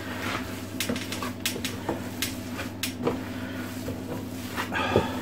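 Gloved hands kneading and squishing chorizo sausage mix (minced pork with paprika) in a plastic tub, with irregular small knocks and clicks against the tub's sides. A steady low hum runs underneath.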